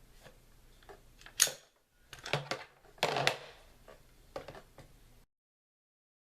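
Metal rifle parts clicking and clacking as they are handled and fitted, in several short groups of sharp clicks. The loudest click comes about a second and a half in.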